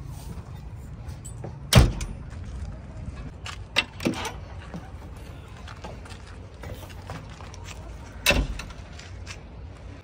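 Sharp knocks and thumps on the metal cab and steps of a JCB 3DX backhoe loader as someone climbs into and out of it, over a low steady rumble. The loudest knock comes about two seconds in, two lighter ones around four seconds, and another strong one near the end.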